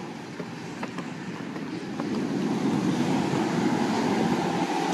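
Wind rushing over the microphone with surf behind it, a steady rushing noise that grows a little louder about two seconds in.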